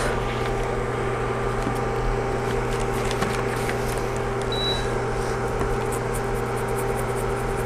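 A steady low electrical hum, with faint light scraping ticks from a metal spatula scraping adhesive off the backs of eyeshadow pans; the ticks come more often in the second half.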